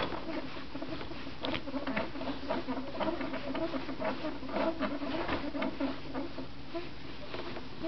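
Irregular patter of small clicks and rustles, with soft wavering grunting sounds, from an awake infant wriggling in a fabric baby bouncer seat.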